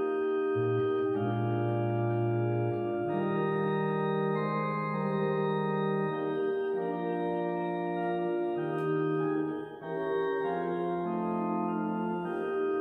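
Electronic keyboard on an organ voice playing a slow hymn in sustained chords over a moving bass line, with a brief gap between phrases about ten seconds in.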